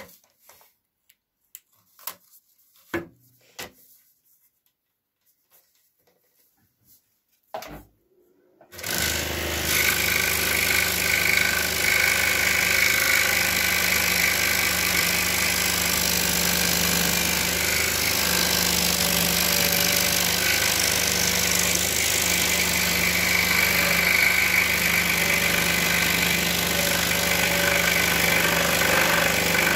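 A few faint clicks, then about nine seconds in a Pégas 21-inch precision scroll saw starts suddenly and runs steadily, its blade sawing through a stack of wood.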